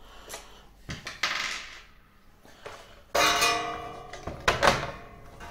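Metal parts of a cigarette-making machine being handled: a scrape about a second in, then a sudden ringing metallic clatter about three seconds in, followed by two sharp clicks.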